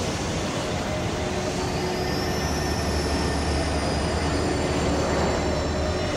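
Electronic music soundtrack: a dense, steady rumbling noise texture over a low hum, with a few faint held tones.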